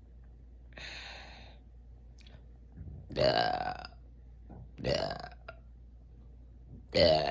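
A person burping three times, each burp loud and croaky, about two seconds apart, brought up by drinking sparkling water. A short breathy rush comes about a second in, before the first burp.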